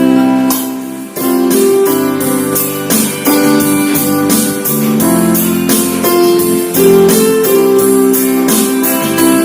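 Instrumental break of a pop ballad: keyboard and guitar playing sustained chords over a steady beat, with no singing.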